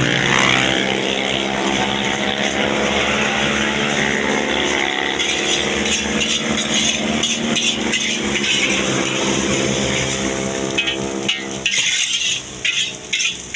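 A motor engine running steadily close by, its pitch holding level, over the stir-frying. Toward the end the metal spatula clacks and scrapes against the steel wok in quick strokes.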